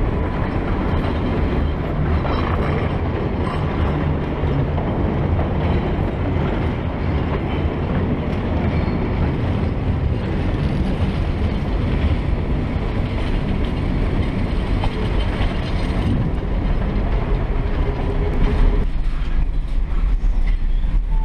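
California Western Skunk Train passenger train running along the track, heard from beside an open car: a steady, loud running noise with a heavy low rumble from the wheels. About nineteen seconds in the sound turns duller, with less hiss.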